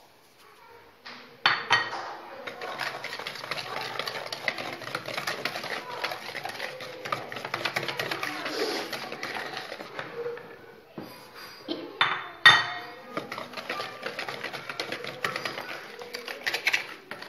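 Metal wire whisk beating semolina basbousa batter in a large ceramic bowl: rapid scraping and clinking of the wires against the bowl. Two louder knocks come about a second and a half in and about twelve seconds in.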